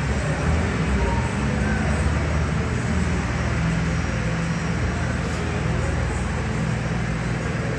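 Steady low rumble of airliner jet engines, holding level without rising or falling.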